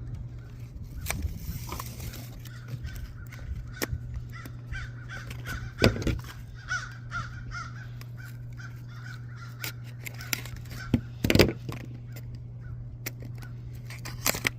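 Small plastic toy packs being handled: scattered clicks and rustles, with louder knocks about six and eleven seconds in, over a steady low hum.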